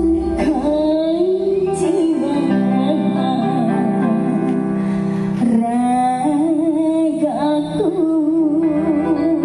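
A dangdut song with a female singer, played loud through a speaker stack driven by a homemade 12 V miniature power amplifier.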